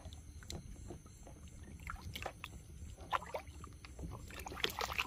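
Faint, irregular splashing and dripping of river water as hands work at the water's edge rinsing and plucking a small bird, with scattered light handling clicks; a few louder splashes near the end.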